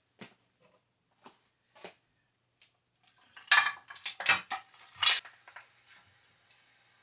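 Metal cookware knocking and clattering as seasoned goat meat is tipped from a stainless pot into a larger pan: a few light clinks, then a burst of clattering about three and a half to five seconds in.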